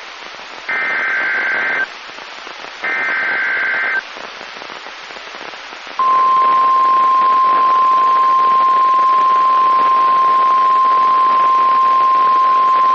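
NOAA Weather Radio alert signalling: the last two bursts of the SAME digital header, each about a second of warbling data separated by radio hiss. About six seconds in, the steady 1050 Hz warning alarm tone starts and holds, marking the start of a new alert, a tornado warning.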